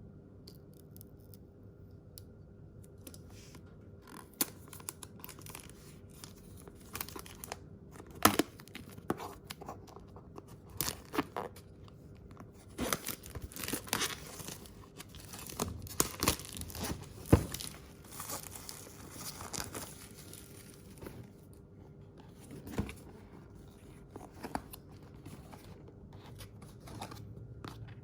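Packaging being torn open and handled: irregular tearing and crinkling with sharp clicks and knocks, busiest through the middle and thinning out near the end.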